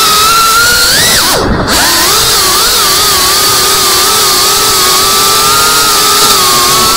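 FPV quadcopter's brushless motors whining steadily, their pitch wavering with the throttle. About a second in, the pitch drops steeply as the throttle is cut, then climbs straight back as it is punched again.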